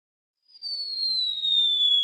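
Falling-whistle sound effect: a single pure whistling tone starts about half a second in and glides slowly down in pitch, with a fainter tone rising underneath it.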